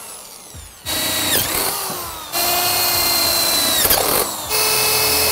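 Power drill with a quarter-inch bit boring holes through a stainless steel bowl, running in three bursts, its whine dropping in pitch each time the trigger is let off.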